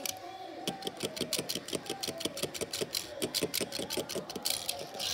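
Die-cast toy car being worked by the fingers on a stone countertop: a rapid, even train of clicks, about six to eight a second.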